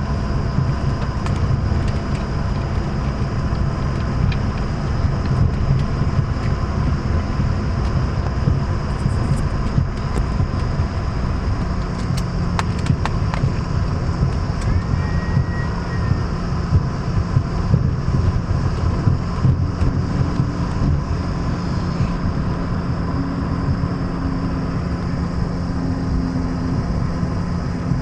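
Jet airliner cabin noise during taxi: a steady engine rumble with a high turbine whine over it. A few sharp clicks come about halfway through.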